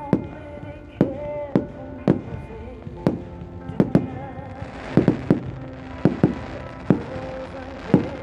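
Fireworks display: aerial shells bursting in a quick, uneven series of sharp bangs, about fifteen in eight seconds, some coming in rapid pairs and triples.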